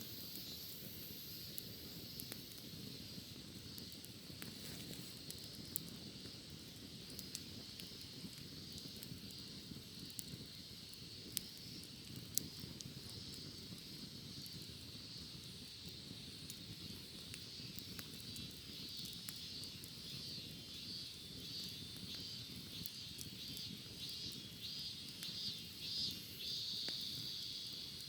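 Cicadas droning steadily in a high register, with a pulsing cicada call building up over the last several seconds. A campfire crackles underneath with occasional sharp pops.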